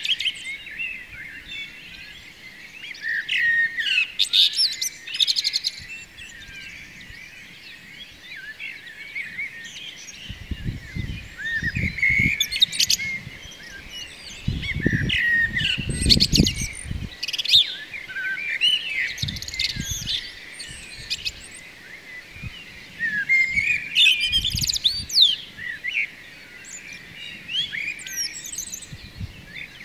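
Dawn chorus of songbirds chirping and twittering, many quick overlapping calls. A low rumble comes in for several seconds in the middle.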